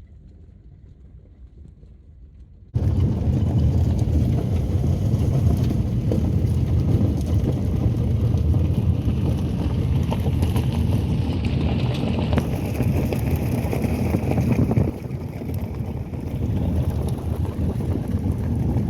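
Vehicle driving over a dirt road: a steady, loud rumble of road and wind noise that comes in suddenly about three seconds in after a quieter stretch.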